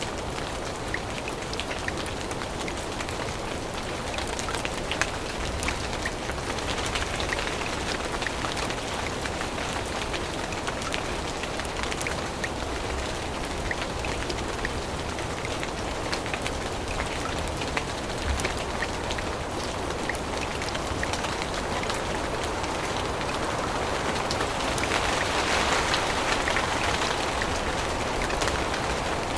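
Steady rain falling through forest, many separate drops ticking close by among the steady patter; it grows a little louder about 25 seconds in.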